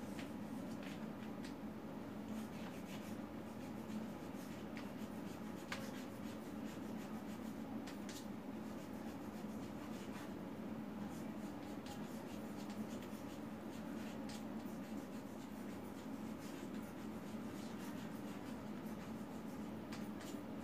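Chalk writing on a blackboard: short, irregular scratches and taps of the chalk against the board, over a steady low hum.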